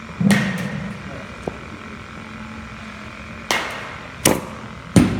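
Batting-cage practice with dimpled machine balls: four sharp cracks of bat and ball impacts. One comes with a brief ring a moment in, and three more follow close together near the end.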